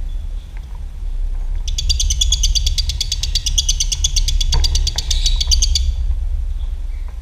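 Lovebird giving a long, rapid chattering trill (the 'ngekek' song), about ten notes a second, starting about two seconds in and lasting about four seconds, over a steady low hum.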